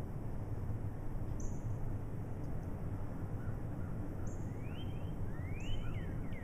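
Songbirds calling: a few short, high chirps spread through, and two rising slurred whistles shortly before the end, over a steady low rumble of background noise.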